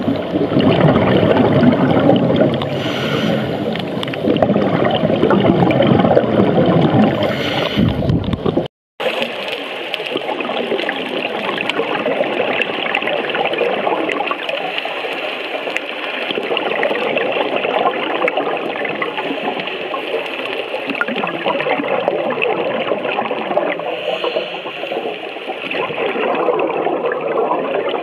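Underwater sound picked up through a diving camera: a steady rushing and gurgling, with bubbles from a diver's breathing coming at intervals of a few seconds. A cut about nine seconds in drops it out for a moment, and then it carries on thinner and hissier.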